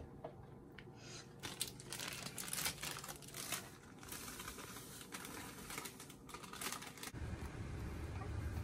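Brownie mix bag crinkling and rustling as it is handled and opened, with irregular crackles and rustles.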